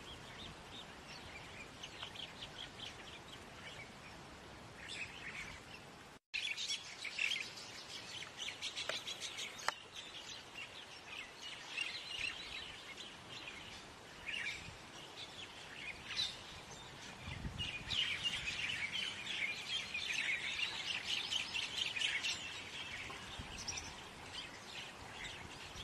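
Many small birds chirping in quick, short notes, with a brief break about six seconds in; the chirping is busiest in the last third.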